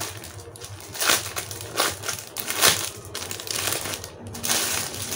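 Clear plastic packaging bag crinkling and crackling as it is handled by hand, in several sharp bursts over a steady rustle.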